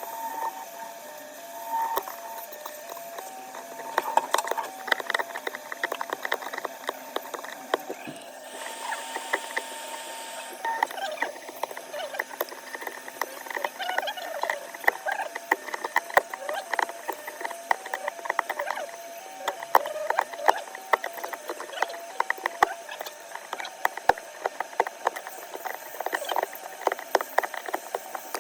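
Small repair tools clicking, tapping and scraping on a phone during a back-glass repair: many irregular small ticks, with a brief hiss about nine seconds in.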